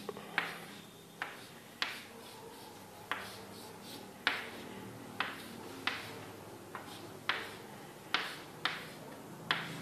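Faint, irregular sharp ticks and taps, about a dozen, roughly one a second, from a writing instrument striking a writing surface while drawing.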